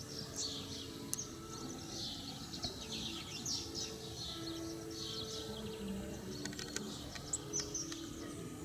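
Small songbirds chirping and twittering continuously, many short calls overlapping, over a low background drone.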